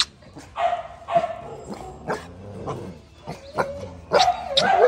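Puppies barking and yipping in a run of short, repeated barks, coming closer together near the end.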